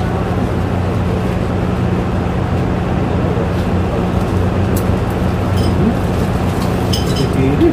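A steady low mechanical hum with a noisy wash over it, and a few light clicks about halfway through and near the end.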